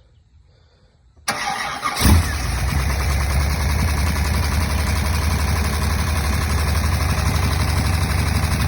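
1964 Buick Nailhead V8 cranking on the starter about a second in, catching with a loud burst after under a second of cranking, then running steadily at idle. This is its first start after a new rocker shaft assembly was fitted to cure valvetrain clatter.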